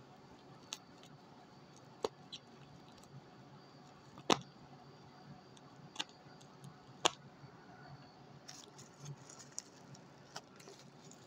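Hands working at a taped cardboard box to get it open: a handful of separate sharp clicks and taps, spaced a second or more apart, with faint rustling between.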